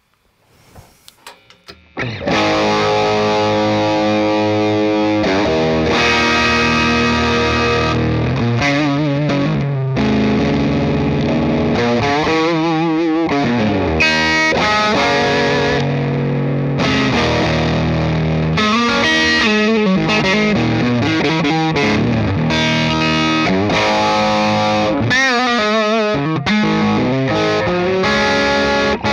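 Electric guitar played through a Jackson Audio Golden Boy Mini overdrive pedal dialed in for a heavily gained-up, distorted tone. After a few faint clicks, the playing starts about two seconds in: sustained notes and chords, with bends and vibrato in places.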